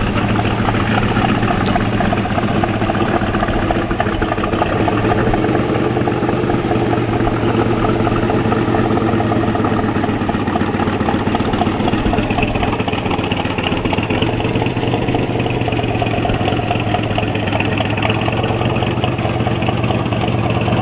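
C2 Corvette's V8 engine running steadily at idle and low speed as the car creeps along and parks.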